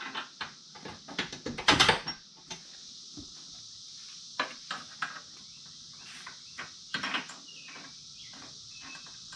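Scattered metal clicks and knocks as bolts are started by hand into a steel rock slider held against a Can-Am Maverick X3's frame, busiest about two seconds in, with a few more later. A steady, high chirring of crickets runs underneath.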